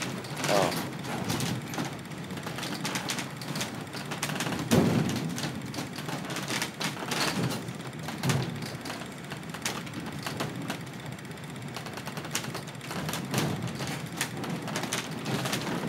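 Steady running noise inside a crew boat's cabin in rough seas, with frequent knocks and rattles and a few heavier thuds, the loudest about five seconds in.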